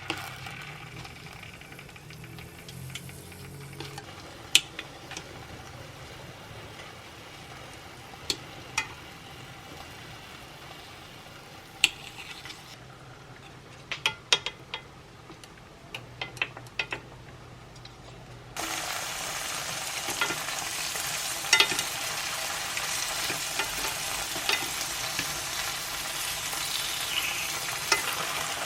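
Pan-frying tofu for dubu buchim. First come scattered light clicks and taps of utensils; about two-thirds of the way in, a steady sizzle of hot oil starts abruptly and runs on, louder than what came before.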